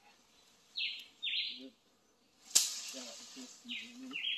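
A bird calls in repeated pairs of short, harsh notes, the second note of each pair lower than the first. About two and a half seconds in, a sharp snap is followed by a hiss that trails off over a second or so.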